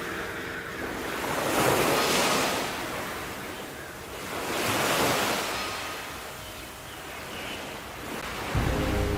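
Sea waves washing in, two swells of surf rising and falling away. Soft held tones of calm music come in near the end.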